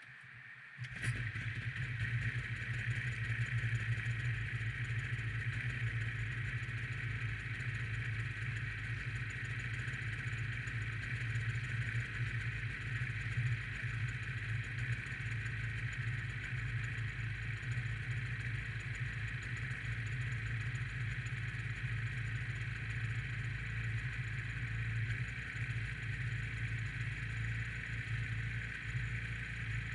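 Snowmobile engine running at a steady speed, starting abruptly about a second in and holding an even drone throughout.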